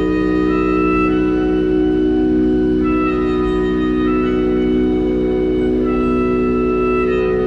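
Live band music: a steady, sustained drone with long held melody notes above it that shift every second or two.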